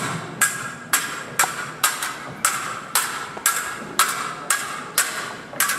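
Stage swords clashing blade on blade in a choreographed fencing fight: a steady run of sharp, ringing strikes, about two a second.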